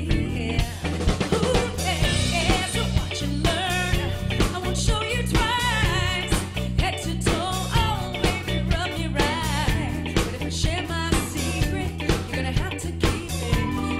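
Band playing an upbeat song with a lead singer over a bass line and drum kit.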